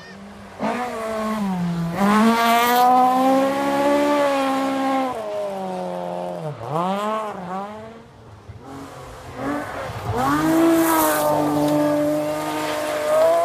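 Rally cars at full throttle on a gravel special stage, passing one after another: engines revving high, with sudden drops in pitch at gear changes or lifts before climbing again.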